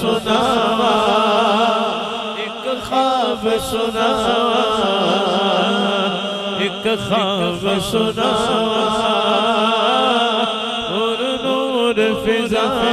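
A man singing a naat solo into a microphone, drawing out long ornamented notes. His voice wavers and trills up and down in pitch with few breaks.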